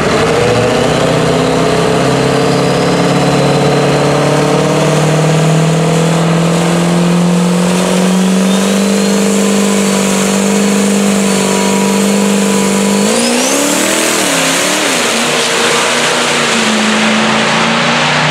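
Diesel pickup truck's engine at full throttle on a drag-strip pass: a loud, steady drone that climbs slowly in pitch, with a faint high whistle rising above it. About thirteen seconds in the pitch drops and wavers briefly before settling.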